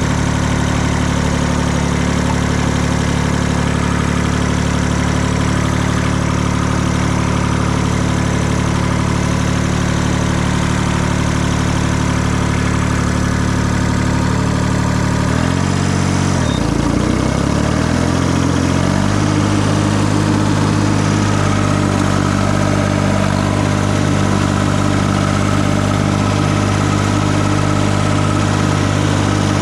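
Tractor engine running steadily. About halfway through, the engine speed wavers for a few seconds, then settles at a new steady speed.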